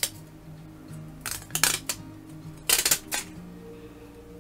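Thin plastic protective film being peeled off new battery adhesive strips and crinkled in the hand, in two short bursts of crackling, about a second and a half in and again about three seconds in.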